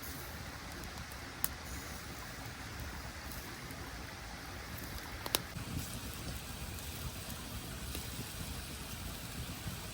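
Steady hiss of water dripping from a rock overhang, with a couple of sharp pops from a campfire about one and a half and five seconds in.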